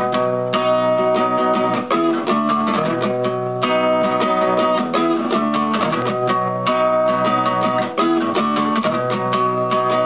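Acoustic guitar strummed in a steady rhythm, several strokes a second, the chords ringing between strokes.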